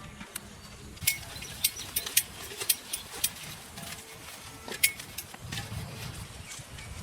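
Sharp, irregular clinks and taps of cooking utensils, about ten in quick succession from a second in to a little past three seconds, and one more near five seconds, some with a short ring.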